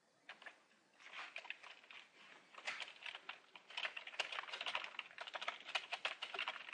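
Typing on a computer keyboard: a quick, uneven run of key clicks that starts about a second in.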